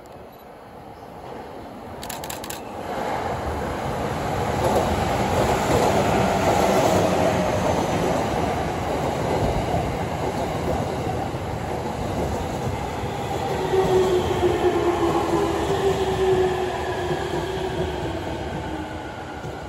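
JR East electric commuter train at the platform: rail and wheel noise builds up over the first few seconds and stays loud. Later the traction motors' whine slides steadily down in pitch in several tones, as the motors slow the train.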